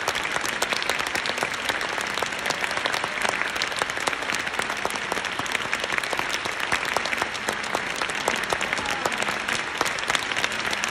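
Large theatre audience applauding steadily, many hands clapping without a break.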